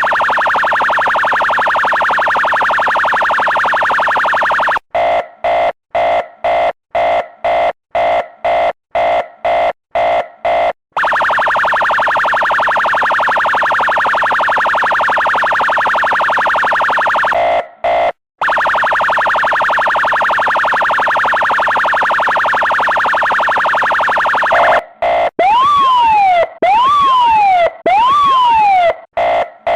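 Electronic police car siren cycling through its tones. A steady buzzing tone gives way about five seconds in to rapid short beeps, about two a second; the steady tone returns, and near the end come three quick whoops that rise and fall about once a second.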